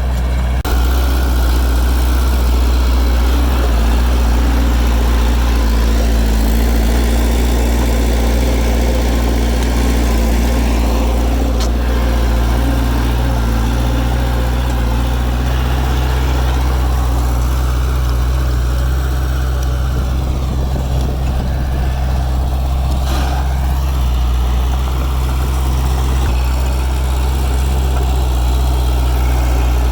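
Heavy diesel engine of earthmoving machinery running steadily with a low, even drone throughout.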